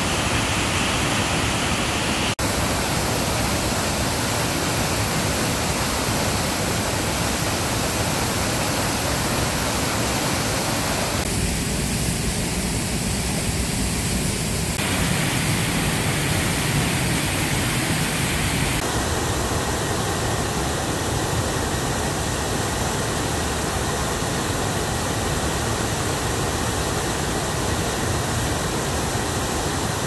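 Waterfall, water pouring down a rock cliff into a pool, heard as a loud, steady rush. Its tone changes abruptly a few times where separate recordings are cut together.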